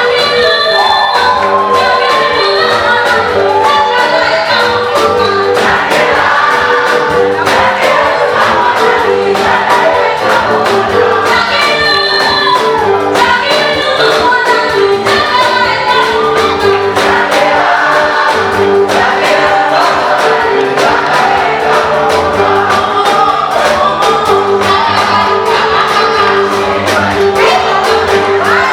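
A choir singing an upbeat African gospel song with a band: voices in harmony over drums keeping a steady beat and a bass line.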